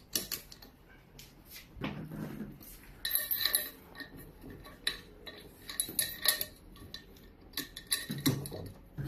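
Metal clinks and knocks as the water bike's frame bars are handled and fitted into the frame, in scattered clusters with a couple of duller thumps.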